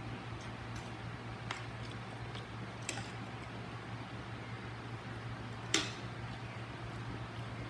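Utensils clicking against a plate while eating, a few separate clicks with the loudest a little before the end, over a steady low hum.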